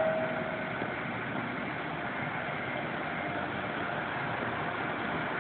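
Diesel railway engine running steadily, an even hum that does not change.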